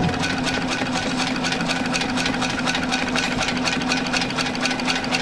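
A double-thread seated-type inseam sewing machine running continuously, stitching through a leather shoe upper: a steady motor hum with a fast, even ticking of the needle mechanism.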